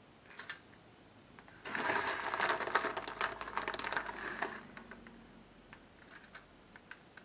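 Crinkling and rustling of a plastic zip-top bag of shredded cheese being shaken out. A dense crackle starts about two seconds in, lasts about three seconds, then thins to a few scattered ticks.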